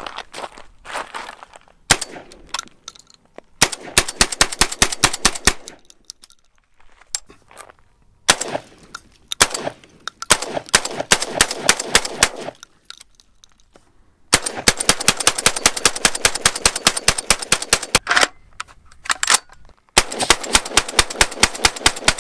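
Typhoon Defense F12, a gas-operated semi-automatic 12-gauge AR-pattern shotgun, firing in several fast strings of shots with short pauses between them.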